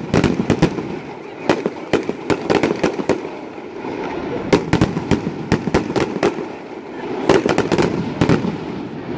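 Fireworks display: aerial shells bursting in several quick volleys of sharp bangs and crackles, with a steady background noise between the volleys.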